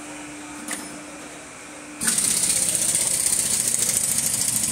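Power tool running with a fast, high rattle for about three seconds, cutting in sharply about two seconds in; before it, a steady low hum.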